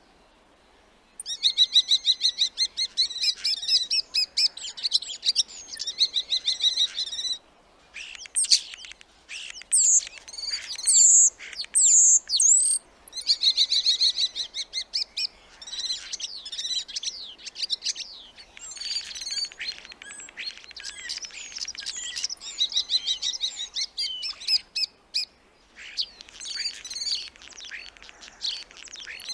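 Starling singing: a fast rattling chatter, then whistled glides mixed with sharp clicks, then more chatter and varied notes, in phrases broken by short pauses.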